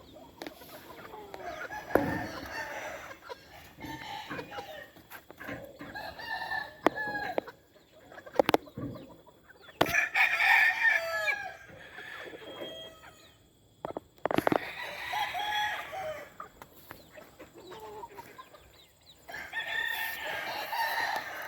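Game roosters crowing, several crows about every four seconds, with clucking between them and a few sharp knocks.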